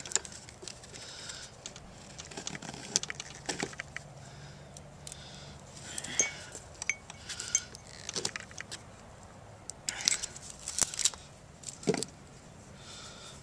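Pocket knife scraping and cutting insulation off wire, with scattered small metallic clicks and scrapes as the bared wire strands are handled. A quick run of clicks comes near the end, followed by a single knock.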